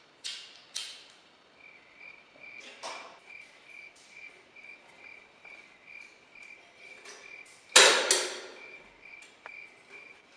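Crickets chirping steadily at a high pitch, about three chirps a second, starting about two seconds in. A few sharp knocks sound over them, and a much louder sudden thump comes about eight seconds in.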